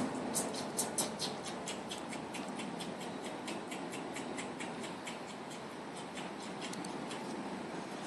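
Rapid light clicking, several clicks a second, loudest in the first couple of seconds and thinning out later, over a steady background noise.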